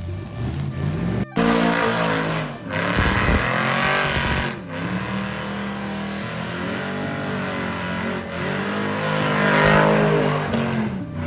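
Car engines revving hard, rising and falling in pitch, over tyre noise, broken by sudden cuts several times.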